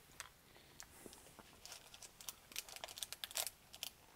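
Foil candy wrapper crinkling in a run of quick, faint crackles, thickest about three seconds in, as the wrapped chocolate is handled and a knife is pressed into it.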